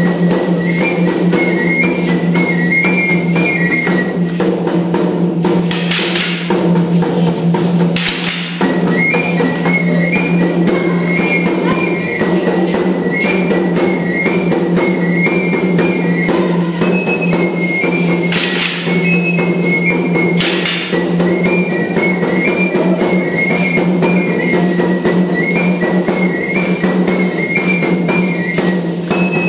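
Pipe-and-drum music for a dance: a high flute repeats a short, stepping melody over a small hand drum beating steadily. There are a few short, louder noises along the way.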